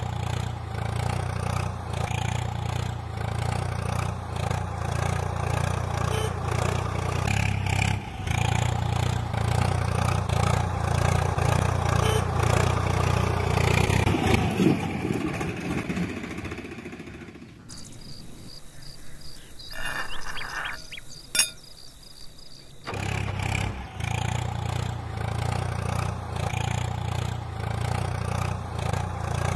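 Small engine running steadily with a regular putter, heard as the miniature tractor's engine sound. It drops out for about five seconds past the middle, leaving a quieter stretch with a faint high tone and one sharp click, then comes back.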